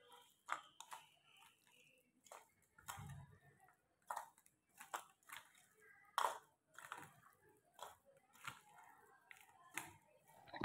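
Spoon stirring marinated chicken pieces in a stainless steel bowl: faint, irregular wet squelches and scrapes, one with each stroke.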